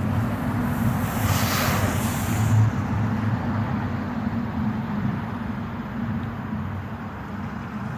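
Steady wind rumble on the microphone, with a hiss that swells and fades between about one and three seconds in.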